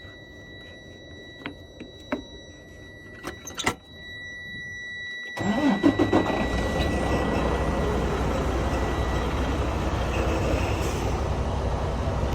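A few clicks, then about five seconds in the Freightliner Cascadia's diesel engine cranks, catches and settles into a steady idle on its freshly replaced batteries.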